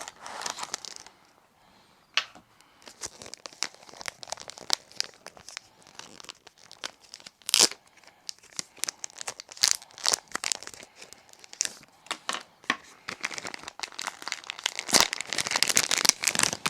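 Hands rummaging in a bag and handling small plastic items: crinkling rustle with many small clicks and taps, thickening into a denser rustle near the end.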